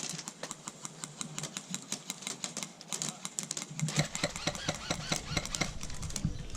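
Airsoft guns firing: rapid, irregular clicking shots, singles and short strings, several a second.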